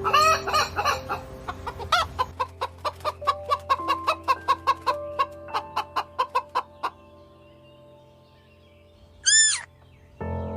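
Chicken clucking: a call at the start, then a fast run of short clucks, about four a second, for some five seconds, over background music. A single high call comes near the end.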